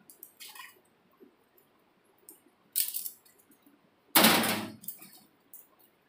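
Metal wire rack stands of a convection microwave clinking and rattling against each other as they are handled. There are scattered clicks, a sharper rattle near the middle, and the loudest clatter about four seconds in.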